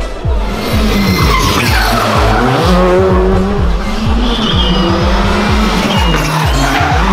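Skoda Fabia rally car engine revving hard through a tight corner, its pitch dropping and then climbing again, with tyre squeal. It is mixed with background music that has a steady beat of about three strokes a second.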